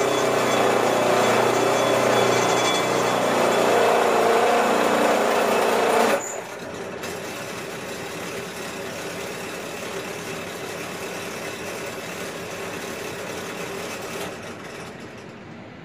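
Benchtop drill press running and drilling into copper: a loud steady motor drone with cutting noise. About six seconds in it drops suddenly to a quieter steady running sound, and it drops again near the end.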